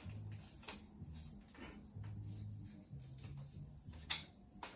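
Faint plastic clicks and rattles from a Double Eagle M35 spring-powered airsoft Uzi being handled as a part is fitted and locked on, with the sharpest clicks about four seconds in and just before the end. A steady high-pitched tone runs underneath.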